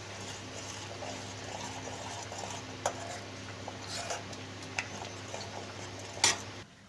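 Metal spoon stirring and scraping garlic chutney paste as it fries in oil in a steel kadai, over a steady frying sizzle, with a few sharp clinks of spoon on pan, the loudest near the end just before the sound cuts off.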